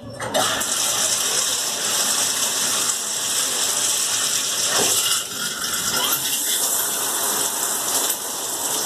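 Bathtub tap turned on and running in a steady gush of water, to rinse deep conditioner out of hair.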